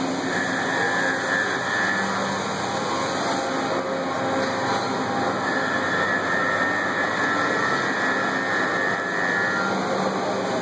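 LeBlond Makino A55 horizontal machining center running: a steady hiss of machine noise with a faint high whine that comes and goes, heard in the first two seconds and again from about five to ten seconds in.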